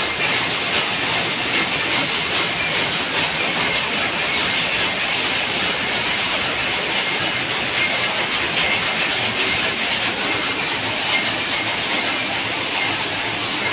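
Dense, steady clatter of many powerlooms running in nearby weaving sheds, a continuous rapid mechanical chatter with a hiss over it.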